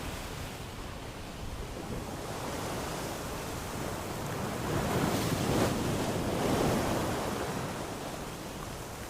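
Ocean waves washing in, a steady rush of surf that swells to a louder breaking wave about halfway through and then ebbs away.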